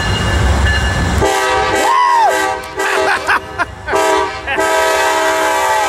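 Amtrak Genesis diesel locomotive approaching with a low rumble, then sounding its multi-note horn chord about a second in: one long blast, a couple of short ones, then another long blast.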